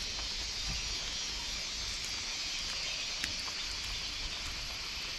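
Steady high-pitched hiss of outdoor forest ambience, with a few faint ticks.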